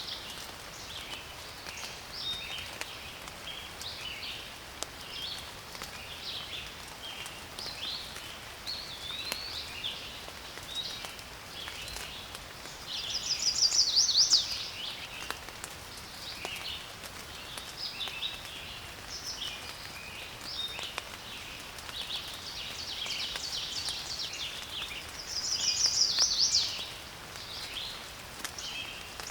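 Forest birds calling and singing, many short chirps and whistles overlapping, with two louder songs of rapid repeated notes that swell and stop, one about halfway through and one near the end. A soft steady hiss lies underneath.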